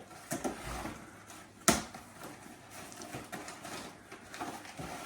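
Items being handled and rustled as they come out of a packed box, with scattered light clicks and one sharp knock a little under two seconds in.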